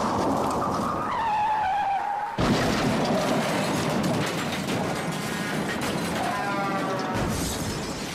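Car crash sound effects: tyres screeching in a skid, then about two and a half seconds in a sudden loud impact followed by a long, noisy crash of crunching metal and breaking glass, with more screeching near the end.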